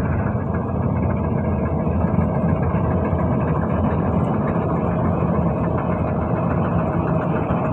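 Combine harvester's diesel engine and threshing machinery running in a steady drone as it cuts a rice crop.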